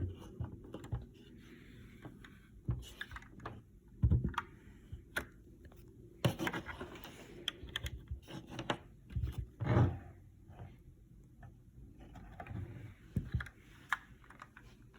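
Keys being typed on a GK61 mechanical keyboard with Gateron Optical Brown switches: irregular clacks, bunching into quick runs in places, with a few heavier knocks.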